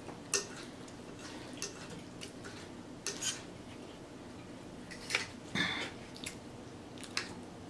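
Steel knife and fork scraping and clinking against a china plate as a steak is cut: a scatter of short, separate clicks and scrapes, the loudest about two-thirds of the way through.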